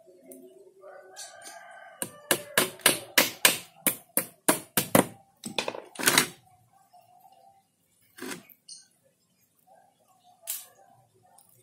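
A quick run of about a dozen sharp clicks, roughly three a second, lasting about four seconds. Two more single knocks follow a few seconds apart, from work on a wooden frame being fitted with plastic mesh.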